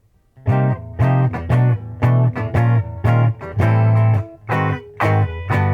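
Electric guitar played through an amp: a rhythmic riff of short chord stabs, ending on a chord struck about half a second before the end and left ringing.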